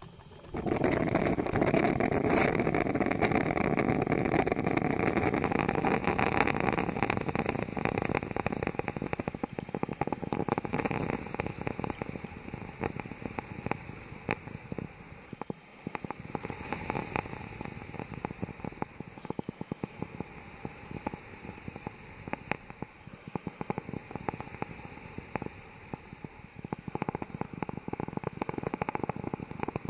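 Old coffee machine running: it starts abruptly about half a second in with a loud, steady rush full of crackling. After about ten seconds it eases into quieter, irregular crackles and pops.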